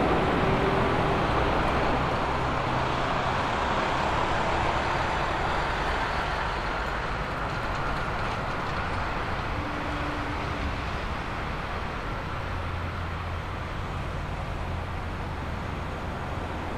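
Jet engines of a landing Boeing 777-200LR airliner: a steady, loud rumbling noise that slowly fades as the aircraft touches down and rolls out along the runway.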